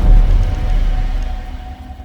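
Background music over a deep low rumble, both fading out steadily over the second half.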